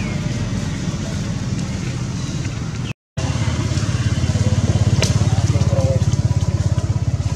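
A small engine idling with a low, even throb. It cuts out for a moment about three seconds in and comes back with a stronger, regular pulse.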